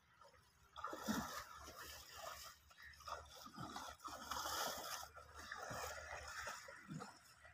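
Water buffalo sloshing through shallow river water and scrambling up a muddy bank: irregular splashing, with hooves squelching and scraping in wet mud, starting about a second in.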